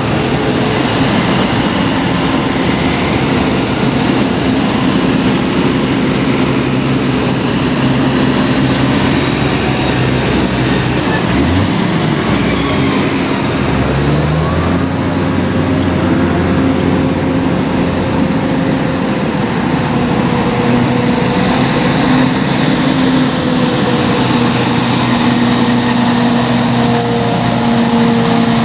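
A stream of tractors and cars driving past, their diesel engines running steadily with engine notes changing as each vehicle goes by. About halfway through, one engine note dips and then climbs again.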